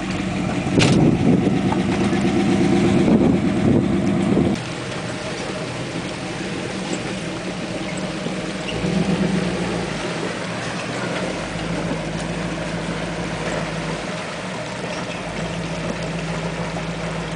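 1974 Jeep Cherokee's carbureted AMC 401 V8 running steadily. It is loud and close for the first four seconds or so, then more distant as the Jeep crawls through a shallow river, with a brief swell in the engine note about nine seconds in. There is one sharp click about a second in.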